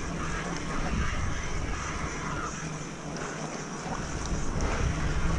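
Steady rushing wind noise on the microphone, with the low rumble of fat mountain-bike tyres rolling over a damp dirt trail.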